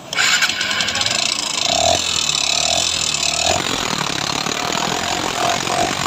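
Honda SP Shine 125's single-cylinder four-stroke engine running with a loud, rapid ticking clatter from the top end. The mechanic traces the noise to a badly worn camshaft and rocker arms.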